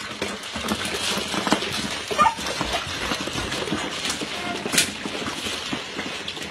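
Husky puppies eating together from a tray, with many small smacking and clicking sounds. One puppy gives a brief high whimper a little over two seconds in.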